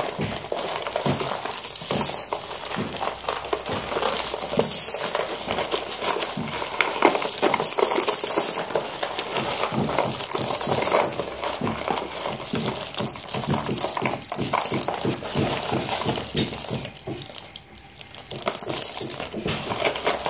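A heap of slate pencils clinking and rattling as hands stir, scoop up and drop them back into the pile, a continuous dense clatter of small dry clicks.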